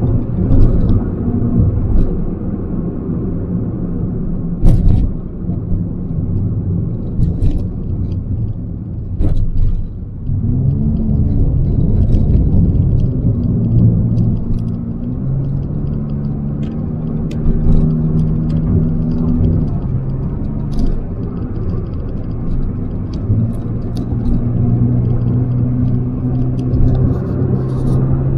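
Nissan car driving, heard from inside the cabin: a steady low engine and road rumble with an engine hum that holds steady pitches. About ten seconds in the note dips and then rises to a new steady pitch, and a few brief knocks come through.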